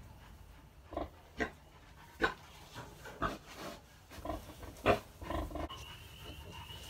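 A heavily pregnant sow grunting in a string of short grunts, the loudest about five seconds in. Near the end a thin steady high-pitched tone comes in.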